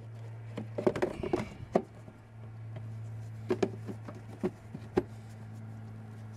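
Plastic air filter housing cover on a 2014 Hyundai Sonata being fitted and pressed down by hand, clacking and knocking as it seats. There is a quick cluster of clacks about a second in, then a few single knocks later.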